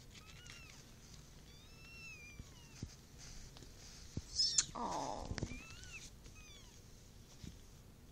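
Newborn kittens mewing: several short, thin, high-pitched squeaks that rise and fall. About halfway through comes a louder burst of rustling with a lower cry falling in pitch.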